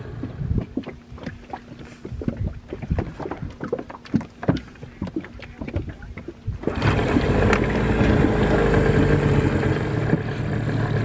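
Scattered knocks and clicks, then about seven seconds in a small Mercury outboard motor comes in suddenly and runs steadily.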